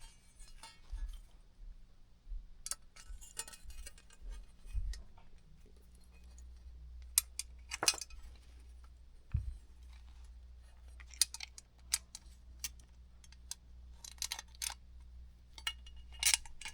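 Small metal screws and nuts clicking and clinking as they are handled and fitted while a light is fastened to its mounting plate, in irregular separate clicks, some sharper than others. A faint steady low hum runs underneath.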